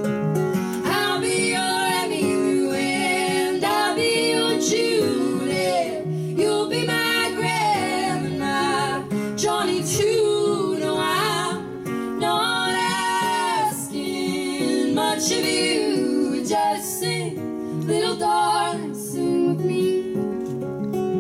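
Two female voices singing together over a strummed acoustic guitar, played live. The guitar is heard alone for about the first second before the voices come in.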